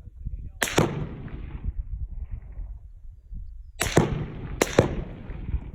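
Gunshots heard from downrange of the shooters, about 100 yards off: a close pair of sharp cracks about a second in, then two more near four and four-and-a-half seconds in, over a low rumble of wind or handling noise.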